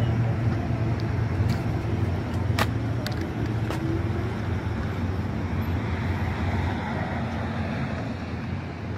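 Road traffic noise: a steady low rumble of passing vehicles, with a couple of short clicks about two and a half and three seconds in.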